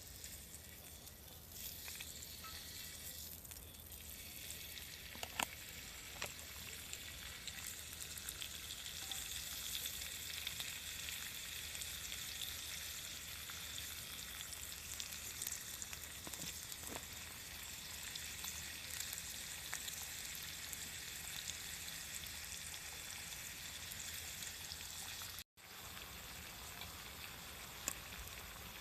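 Food sizzling and frying on a hot cooking surface, a steady even hiss with a few small pops and crackles. It breaks off for an instant near the end.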